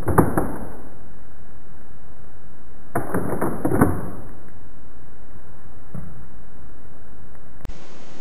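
Sharp plastic clicks and clacks of a Lego rifle's mechanism being worked, in two quick clusters, one at the start and one about three seconds in, with a single fainter click near six seconds. A steady hiss runs underneath, with a brief drop-out near the end.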